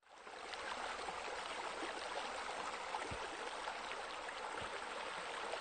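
Steady running water trickling and splashing, coming in quickly at the start.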